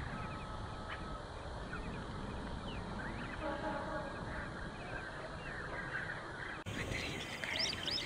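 Wetland ambience: a steady background hiss with scattered high, short bird chirps, which become busier after an abrupt cut about two-thirds of the way through. A faint, short call of several stacked notes sounds around the middle.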